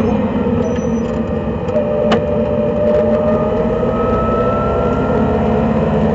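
Racing car's engine and road noise heard inside the cabin, loud and steady, as the car slows for a corner and then accelerates again, the engine note slowly rising from about two seconds in. A single sharp click about two seconds in.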